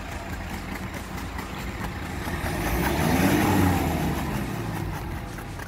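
Off-road SUV engine running, revving up and easing back down about halfway through.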